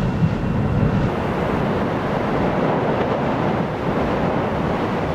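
Steady, loud rushing noise at an active lava lake, the churning lava mixed with wind buffeting the microphone.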